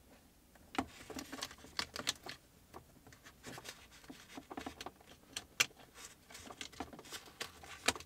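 Irregular small plastic clicks and taps as a shift-boot trim frame is handled and worked into a car's centre console, with a few sharper clicks standing out.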